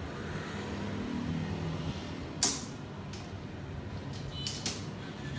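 Steady low background noise, with one sharp click or knock about two and a half seconds in and a few weaker clicks near the end.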